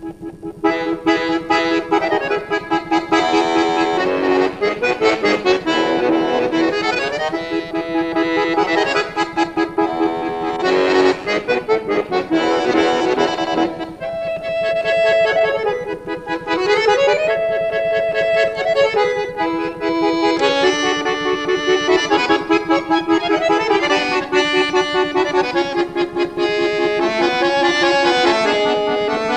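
Chromatic button accordion played solo, with fast runs of notes over held chords and a few sliding notes.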